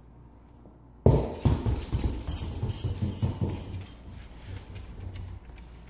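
Dogs scrambling about: a sudden burst of rapid knocks and scuffling about a second in that dies away over the next few seconds.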